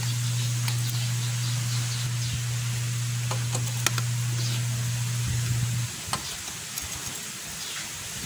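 A steady low hum that cuts off about six seconds in, with a few light metallic clicks of a tool turning the bolts on a motorcycle engine's cover.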